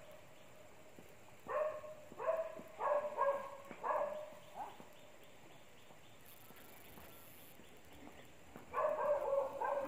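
An animal calling in short, pitched calls: a run of about six calls roughly half a second apart, a quiet stretch, then another quick run near the end.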